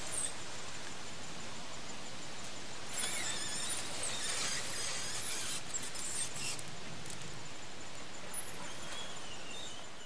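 Plastic stretch wrap squealing in wavering high squeaks as it is pulled off a hand-held roll and stretched around a shelter frame. The squeaks are strongest over a few seconds around the middle, with shorter ones later.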